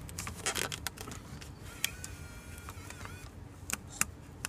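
A tape-wrapped plastic card being worked into a car DVD player's disc slot: scattered small clicks and scrapes of plastic against the slot.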